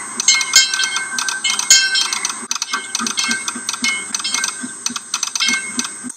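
A steam locomotive's bell ringing over and over as the engine moves off, each swing giving a clang that rings on.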